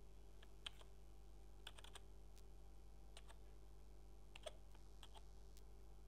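Computer keyboard keys pressed one at a time, slowly and irregularly at about one a second, as an IMEI number is typed in digit by digit. The clicks are faint, over a steady low hum.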